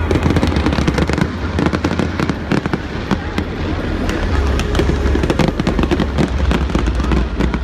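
Fireworks display going off: a dense run of quick crackles and bangs over a steady low rumble.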